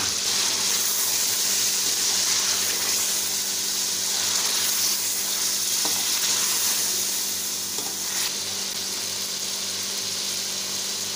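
Chicken and tomato masala sizzling steadily in a cooking pot on the stove.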